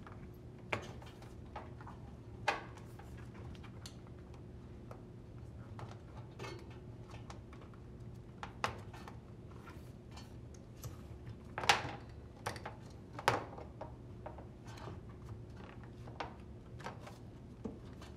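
Hands handling and fitting the rubber door boot seal of an LG front-load washer: scattered light clicks, taps and rubbing at irregular intervals, the sharpest a few near the middle, over a faint steady low hum.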